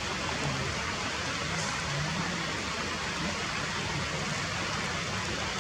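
Steady rainfall, an even hiss that does not change.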